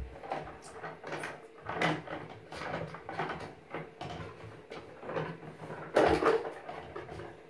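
Irregular knocks and clatters of a plastic cup handled by a baby against the plastic of a bathtub and bath basket, the loudest about six seconds in.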